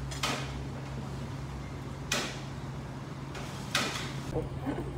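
Three short knocks of tableware on a wooden table, spaced about two seconds apart, over a steady low hum.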